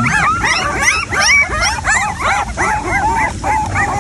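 A litter of newborn puppies squealing and whimpering together: many short, high squeaks overlap with no break.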